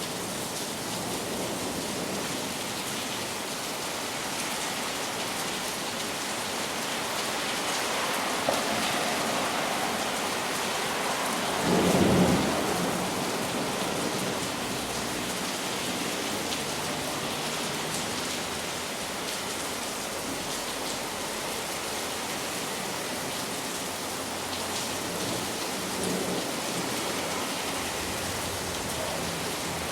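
Heavy rain falling steadily, with one low roll of distant thunder swelling and fading about twelve seconds in.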